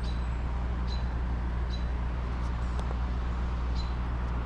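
Steady outdoor background noise: a low hum under a broad hiss, with short high chirps about once a second.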